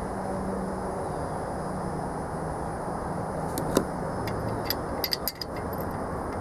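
A few light metallic clicks and taps over a steady background hum: a single sharp one just before four seconds in, then a quick cluster of several about a second later.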